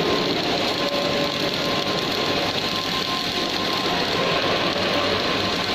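Robotic arc welding on a steel pipe: the welding arc crackles and buzzes steadily, throwing spatter, with a faint steady whine underneath.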